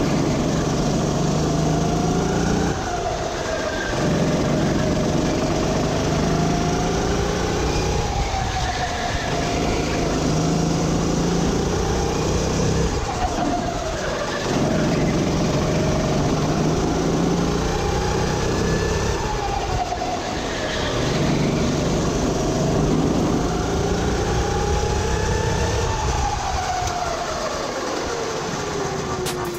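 Sodi RT8 rental kart's engine at racing speed, heard from the driver's seat. Its pitch climbs along the straights and drops off into each corner, over and over.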